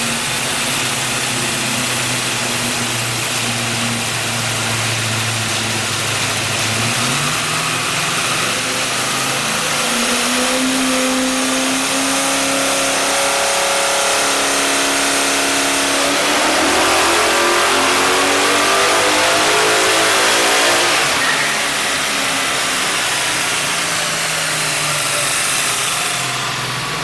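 Built 383 V8 with a solid roller cam, running steadily, then pulling up through the revs in a long rising wail that peaks about 21 seconds in. It then drops off sharply as the throttle is lifted, and the engine winds back down toward idle.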